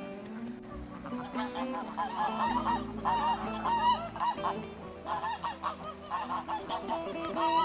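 A flock of domestic geese honking: many short, overlapping honks in bouts, starting about a second in.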